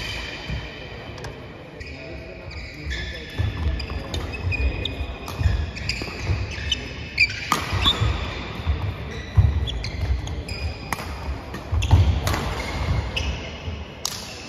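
Badminton doubles rally on a wooden sports-hall floor: sharp racket strikes on the shuttlecock every second or two, short high shoe squeaks, and footfalls thudding on the floor.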